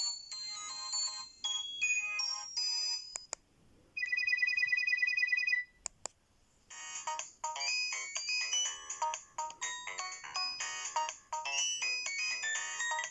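Ringtones from an Alcatel One Touch 316 mobile phone's speaker, played one after another: a bright electronic multi-note melody, a click, about two seconds of a fast-pulsing trill like a phone ring, another click, then another multi-note electronic melody.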